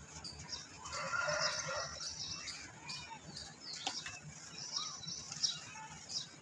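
Dry red dirt lumps crumbling and crunching in the hands, the loose grit crackling and trickling into the bucket. A short pitched call sounds over it about a second in.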